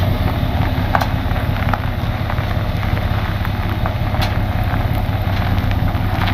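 Truck engines running steadily at low speed while a pickup slowly backs a loaded dump trailer, with a few faint clicks.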